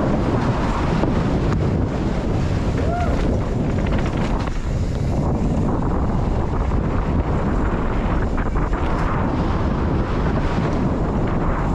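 Steady wind rush over a GoPro action camera's microphone during a fast downhill mountain-bike descent, with scattered clicks and knocks from the bike over the trail.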